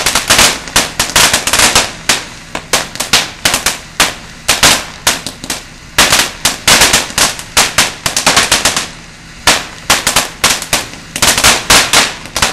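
Ground fountain firework spraying sparks with a rapid, irregular string of loud cracks and pops, several a second, easing off briefly past the middle before starting again.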